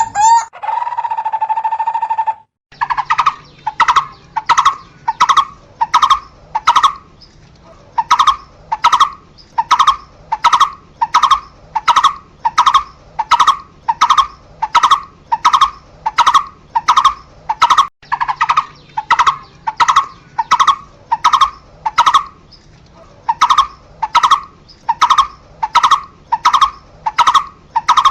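A barbet calling a short hollow note over and over, about two and a half times a second, in long runs with brief pauses. The calls begin about three seconds in, after a short held note, and a faint low hum lies under them.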